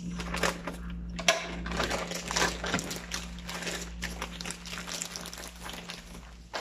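Thin plastic shopping bag crinkling and rustling in quick, irregular crackles as it is handled to get a boxed phone out.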